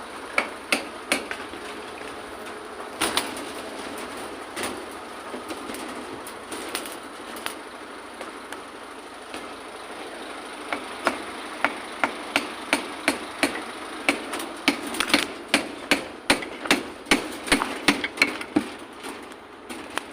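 Hammer blows ringing out, scattered at first, then from about two-thirds of the way through a steady run of about two strikes a second, over the steady sound of an engine running.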